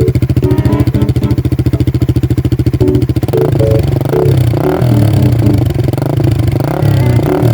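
Suzuki Raider 150 Fi's single-cylinder four-stroke engine idling with an even, rapid exhaust pulse through a muffler with its silencer insert fitted. From about three seconds in it is revved in a series of short throttle blips, its pitch rising and falling with each.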